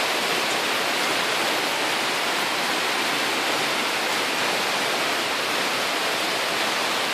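Torrential tropical rain pouring down steadily, with no break or change.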